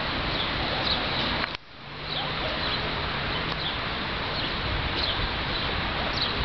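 Gusty wind rushing over the microphone ahead of a squall-line thunderstorm, with birds chirping now and then. About a second and a half in, the sound cuts out briefly and fades back in.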